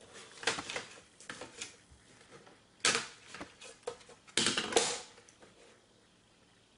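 Pencil and plastic set square being worked on drawing paper: a few sharp taps and short scratchy strokes, the loudest about three seconds in and again about four and a half seconds in.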